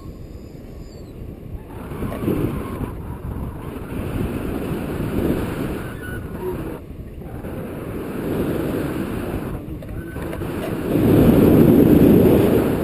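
Wind rushing over the camera's microphone during a paraglider flight. It is a gusty noise that swells and fades and is loudest in a surge near the end.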